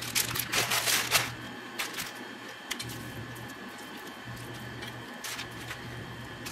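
Rustling and scraping of food prep: flour tortillas and parchment paper handled as taquitos are rolled, and a spoon spreading shredded chicken filling on a tortilla. Loudest in the first second or so, with a low steady hum underneath.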